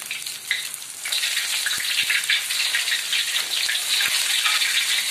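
Sesame-coated kue ketawa dough balls deep-frying in hot oil in a wok: a dense sizzle and crackle that gets louder about a second in and then holds steady.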